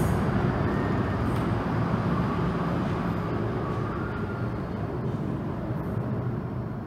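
MTR M-Train electric multiple unit running through the station without stopping, its rumble slowly fading as the last cars leave the platform, with a faint thin whine in the middle.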